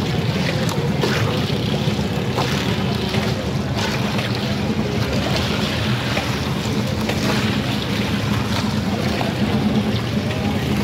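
A steady low motor drone under a noisy hiss, with scattered light clicks and clatter.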